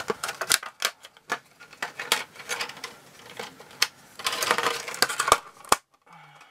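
Clear plastic blister packaging being handled, giving a string of sharp clicks and crinkles.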